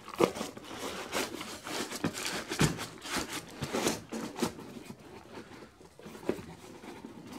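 Crumpled newspaper crinkling and cardboard flaps scraping as a small cardboard mailing box stuffed with newspaper is folded and pressed shut, with a few sharp knocks of the box on the bench. The rustling is busiest in the first half and quieter after.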